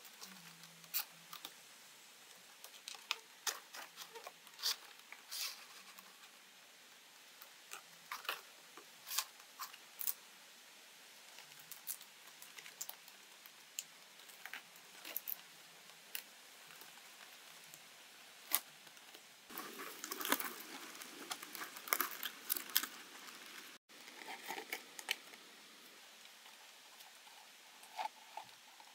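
Stiff green palm leaves rustling and crackling as they are handled, bent over a round frame and tied on, in scattered sharp crackles with a denser stretch of rustling about two-thirds of the way through.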